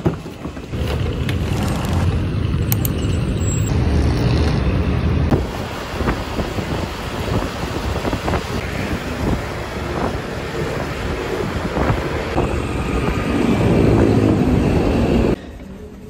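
Traffic rumble with wind on the microphone, in several short clips with sudden cuts between them.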